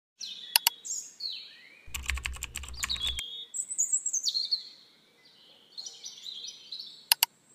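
Sound effects for a subscribe-button intro animation. A mouse click comes near the start, then a quick run of typing-like clicks over a low rumble, then a double click near the end, with high chirping, gliding tones running throughout.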